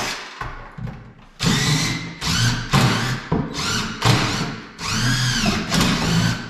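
Cordless drill backing screws out of a wooden kitchen wall cabinet, in about five short runs starting about a second and a half in. Its motor whine rises and falls in pitch as the trigger is squeezed and let off.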